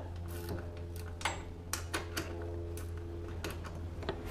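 A hand wrench loosening the oil filter cover bolts on an ATV's aluminium engine case, giving scattered light metal clicks and taps. A steady low hum runs underneath.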